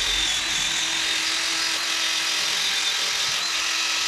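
Cordless drill spinning a brass wire brush wheel against rusty painted steel, a steady scrubbing whir as it strips rust and paint.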